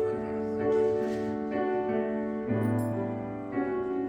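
Piano playing slow chords, a new chord struck about once a second and held.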